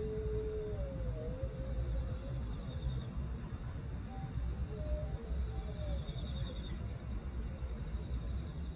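Night chorus of crickets and other insects: several steady high trills, one of them pulsing in an even beat, over a low rumble.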